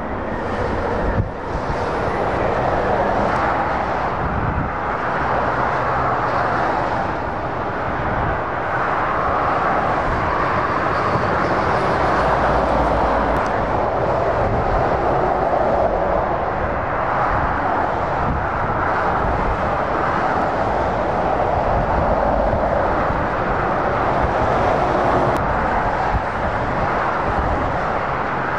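Heavy motorway traffic: a continuous roar of tyres and engines from lorries and cars passing at speed, swelling and easing as vehicles go by.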